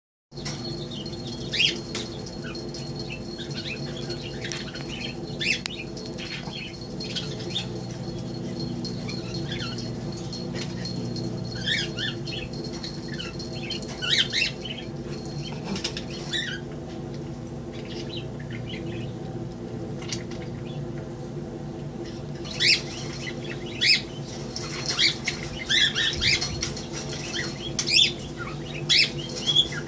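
Male budgerigar chirping and chattering in short, sharp calls, coming thicker and louder over the last several seconds, over a steady low hum.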